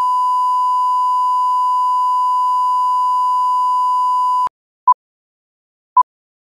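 Steady 1 kHz line-up test tone of the kind played with colour bars. It cuts off suddenly about four and a half seconds in and is followed by two short countdown-leader beeps at the same pitch, about a second apart.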